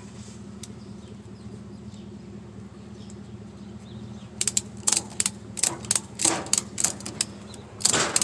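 Ratchet tie-down strap being cranked tight, its pawl clicking in quick irregular runs from about halfway through, over a steady low hum.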